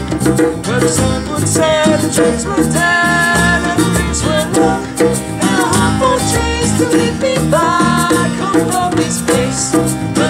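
A small group singing a song together, with acoustic guitar strumming and an electric bass guitar, some notes held long, over a light, quick percussive rhythm.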